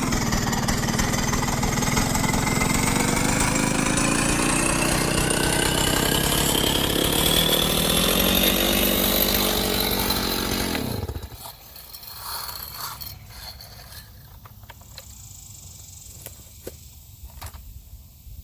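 Chainsaw running at full throttle through wood, its pitch creeping slowly upward. About eleven seconds in, the engine speed drops away sharply, leaving scattered light knocks and rustles.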